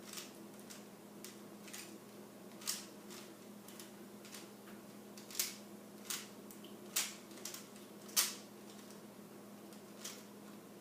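Plastic Rubik's Cube layers being twisted by hand: irregular clicks and clacks, sometimes two in quick succession, with gaps of up to a couple of seconds between them. A faint steady low hum runs underneath.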